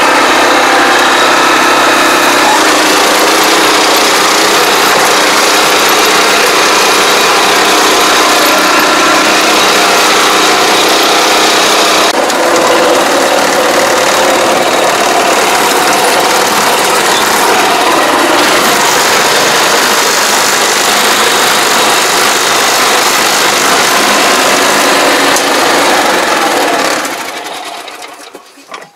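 Small engine of a ride-on crop-spraying machine running steadily and loudly close by as the machine is driven, with a dense mechanical clatter; the sound fades out near the end.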